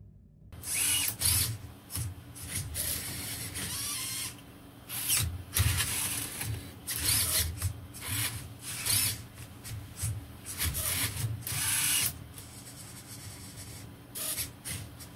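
Swapper3D nozzle-swapping add-on on a Prusa i3 3D printer at work: its motors whir in short, irregular bursts of about half a second to a second, with mechanical rubbing between moves.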